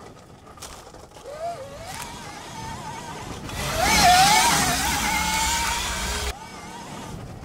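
Electric motor whine of a BHR E-Race electric dirt bike, rising in pitch as the bike accelerates. A louder stretch follows as it powers through a turn with dirt spraying from the rear tyre, then the sound cuts off suddenly about six seconds in.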